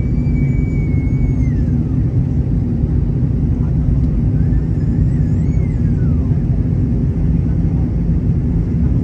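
Airliner cabin noise in flight: a loud, steady rumble of the engines and airflow, heard from a window seat during the descent to land.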